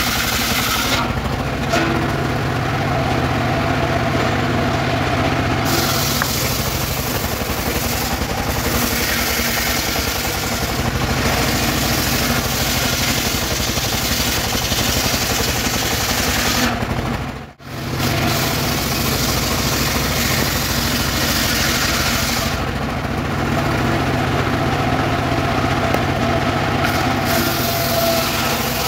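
Engine-driven circular saw bench ripping a weru log into boards: the engine runs steadily under load beneath the blade's continuous cutting hiss. The high hiss thins and returns a couple of times, and a little past halfway the sound drops out for a moment.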